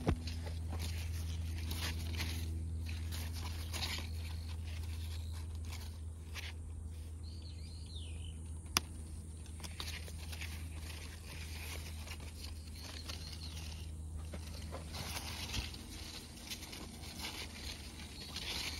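Outdoor ambience with a steady low hum and intermittent rustling of fig leaves and handling noise as the camera moves through the tree. The hum fades after about fifteen seconds. There is a short chirp-like glide and a single sharp click around the middle.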